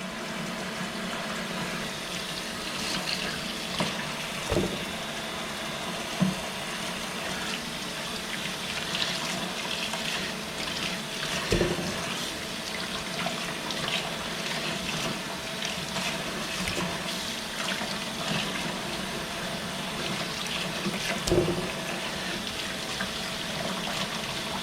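Kitchen faucet running steadily into the sink while fish fillets are rinsed under it, with a few soft knocks of handling in the sink.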